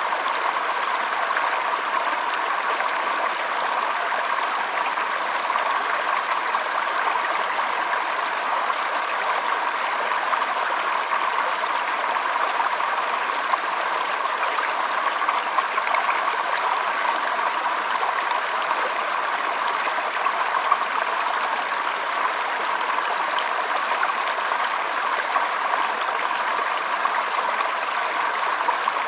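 Flowing water: a steady, even rush with no pauses, its sound strongest in the middle range.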